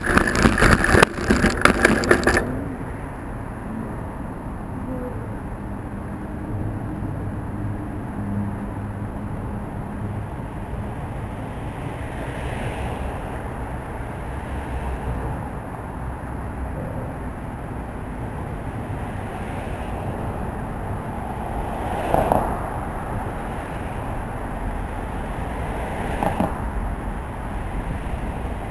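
Bicycle crash after hitting a pothole: the bike and its camera clatter and scrape across the road in a rapid run of knocks, stopping after about two and a half seconds. After that comes a steady low rumble of street traffic, with a couple of brief louder swells later on.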